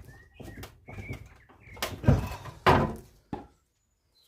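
Hammer blows driving a wooden block against a car body's bent front corner to knock it back into line: a series of uneven knocks, the heaviest two a little past halfway, then they stop.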